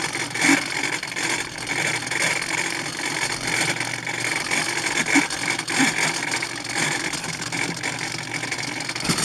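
Micro servos on a foam RC plane whirring in short spurts as a 3-axis gyro stabilizer drives the control surfaces against the plane being moved by hand, over a steady hiss.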